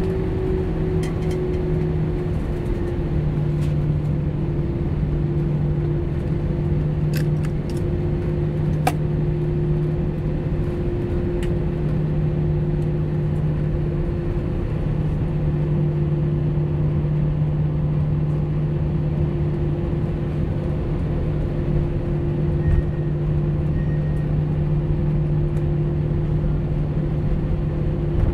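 Airliner's jet engines at taxi power, heard inside the passenger cabin: a steady drone with a low hum that settles slightly lower in pitch in the first few seconds. A few faint ticks come about a quarter of the way in.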